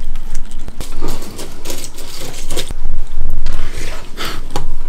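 Milk poured over a bowl of crunchy cereal, then a metal spoon scooping in the ceramic bowl and the cereal crunching as it is eaten, in irregular clicks and crunches with a loud muffled stretch about three seconds in.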